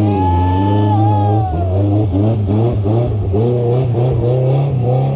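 Off-road 4x4's engine revving hard as it pushes through deep muddy water and climbs out onto the bank, the revs surging up and down repeatedly in the second half. A steady low engine hum runs underneath.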